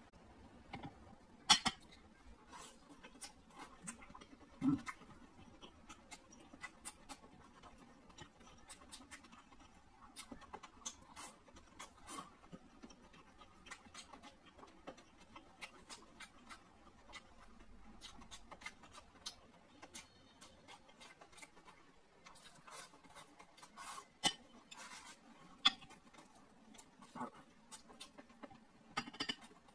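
Close-miked eating: soft wet chewing and mouth smacking on pork elbow and rice, with scattered sharp clicks of chopsticks against the bowls, a few of them louder.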